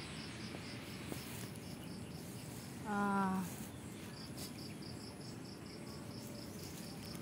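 Insects chirping steadily in a rapid run of high pulses, about five a second. About three seconds in, a short low hum-like voiced sound stands out briefly.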